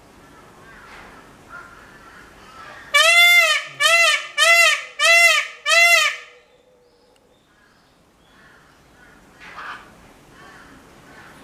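Indian peafowl giving a loud series of five quick calls about three seconds in, each an arched wail that rises and falls in pitch, the first a little longer than the rest.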